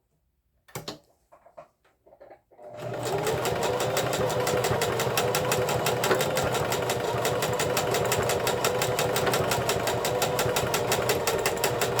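Electric sewing machine stitching steadily at speed, its motor hum under a rapid, even beat of the needle. It starts about two and a half seconds in, after a few faint clicks, and runs on.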